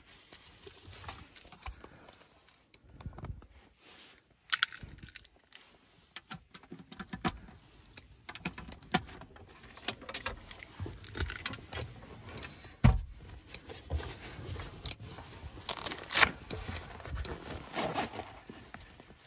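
Handling noise: keys rattling in the lock of a Hornady lockbox, with scattered clicks, scrapes and rustling, and a few sharp knocks in the second half.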